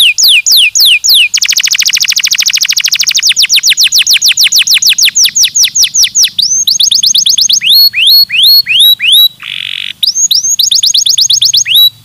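Domestic canary singing: loud, repeated falling whistled notes about four a second, breaking into a very fast trill about a second in, then slower falling notes. Near the end comes a short buzzy note, then more quick notes before the song cuts off.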